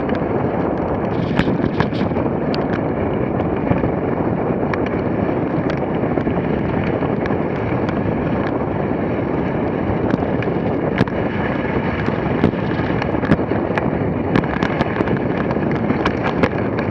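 Dogsled runners sliding fast over packed snow: a steady hiss and rumble, with wind buffeting the microphone and scattered sharp clicks.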